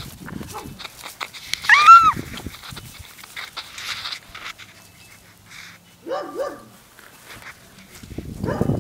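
Puppies play-fighting: one loud, high yelp about two seconds in, two short barks around six seconds in, and scuffling near the end.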